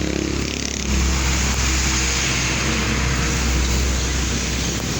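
Steady low rumble with an even hiss, growing louder about a second in: a motor vehicle on the move, heard with wind on the microphone.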